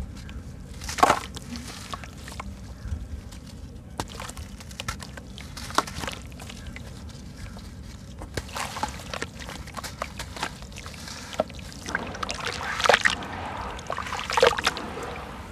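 Soft sand-cement chunk crumbled by hand over a basin of water: scattered crunchy crackles and grit trickling into the water, with water sloshing and splashing as the chunk is pressed into it near the end.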